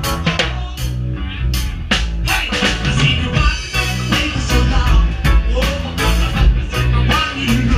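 A live band playing: drum kit hits on a steady beat under electric guitar and keyboard.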